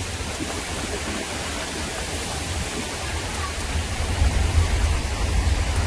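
Heavy rain and floodwater flowing across a road, a steady noisy hiss with a low uneven rumble underneath, a little louder about four seconds in.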